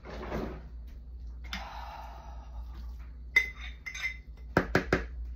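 Glass canning jars clinking and knocking while being handled and emptied over a bucket. There is a short scraping rush about a second and a half in, then two ringing clinks and a quick run of sharp knocks near the end.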